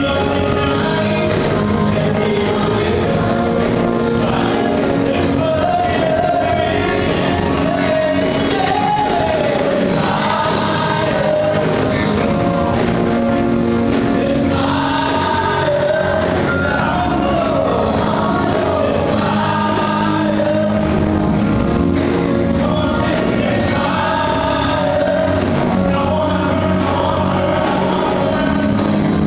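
Gospel praise-and-worship song: a group of singers on microphones singing together over instrumental accompaniment, amplified in a large church hall, playing on steadily.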